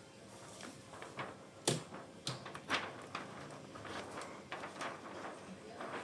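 Plastic parts of a copier's transfer belt unit being handled and taken apart: scattered sharp clicks and knocks, the loudest a few in the middle, with rustling and scraping between them.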